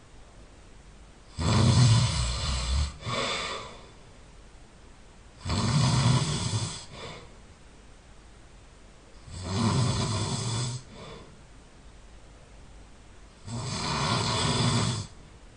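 A person snoring loudly in sleep: four long snores about four seconds apart, each lasting about a second and a half, the first one followed by a short extra snore.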